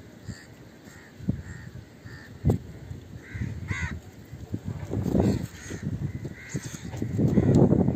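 A bird calling over and over, short calls under a second apart, with a few sharp knocks among them. Near the end wind buffets the microphone and becomes the loudest sound.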